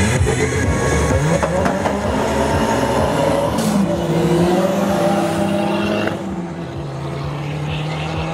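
Side-by-side buggy and an old Lada sedan launching off a drag strip start line, engines revving hard with pitch rising in repeated glides as they accelerate through the gears. About six seconds in the engine sound turns quieter and duller as the cars run away down the strip.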